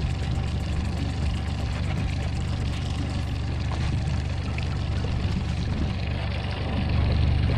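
Boat motor running steadily under way, with water rushing past the hull.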